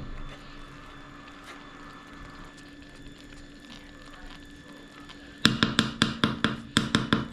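A quick run of sharp knocks, about six a second, starting about five seconds in: a spoon striking the sides of a cooking pot as pilau is stirred. Under it, a low steady hum.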